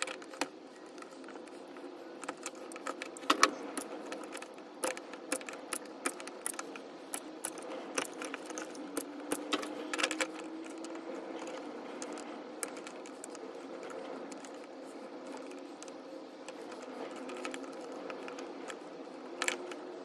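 Irregular sharp clicks and snips of hand pliers and side cutters working copper cable conductor ends, which are being prepared to go into the switch terminals. The clicks are thickest in the first half, over a steady low hum.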